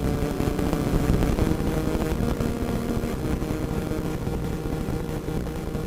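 Radio static: a steady rumbling hiss flecked with rapid crackles, with faint wavering tones mixed in.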